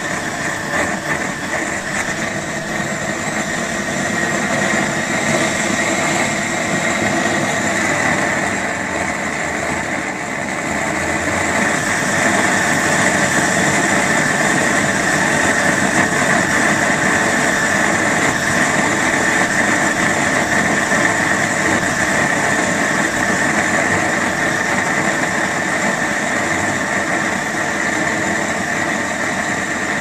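Homemade pressurized gasoline torch, built to fire a model boat's steam boiler, burning at full output: a steady rushing flame noise with a high whistle running through it.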